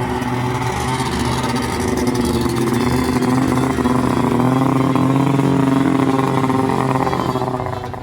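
A vintage snowmobile engine running, growing louder over the first seconds, holding steady, then dropping away near the end.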